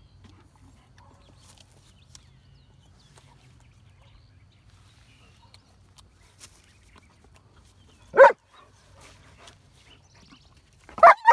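A dog barking: one sharp bark about eight seconds in, then two quick barks near the end.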